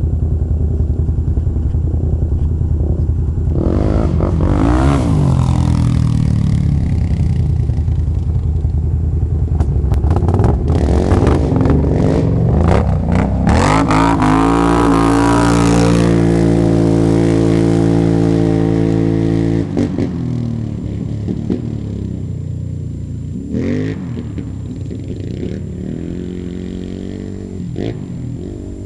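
ATV engines of a Can-Am Renegade 800X and a Polaris Predator 500 revving hard in a drag race, the pitch climbing in surges as they accelerate. They hold a long steady high-rev run that cuts off about two-thirds of the way in. After that the engine sound is fainter, with one more brief rev near the end.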